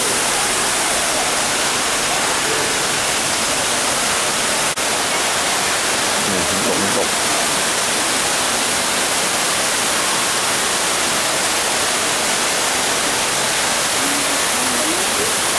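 Tall man-made indoor waterfall pouring down a planted mountain inside a glass dome: a steady, unbroken rushing hiss of falling water. Faint voices sound under it.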